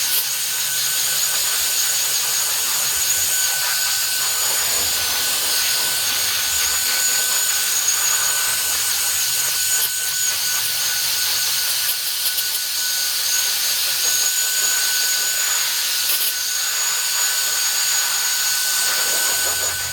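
Cordless electric air duster running at its top power setting: a steady, loud rush of blowing air over a high motor whine, blasting fine ash out of a vacuum cleaner filter. It cuts off suddenly at the very end.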